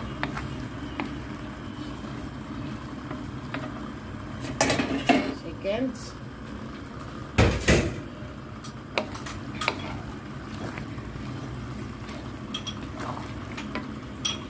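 Wooden spatula stirring noodles in a cooking pan, scraping and knocking against the pan several times, with the loudest knocks about halfway through, over a steady low simmer.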